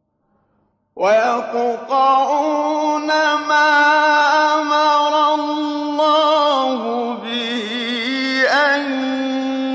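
Solo male voice chanting Quran recitation in the melodic mujawwad (tajwid) style. It comes in after about a second of silence with long held, ornamented notes, dips in pitch around the middle and swoops back up near the end.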